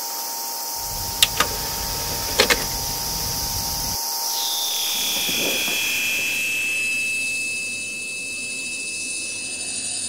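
Layered electronic sound effects: a steady high hiss under held, alarm-like tones, with a lower tone giving way about four seconds in to a higher tone that slides slightly down. A low rumble sits under the first few seconds, and a few sharp clicks come between one and three seconds in.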